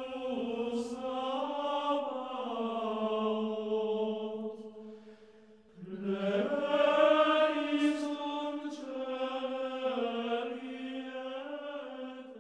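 Background music of slow sung chant with long held notes. It fades almost away about five seconds in, then a new note slides up and the singing carries on.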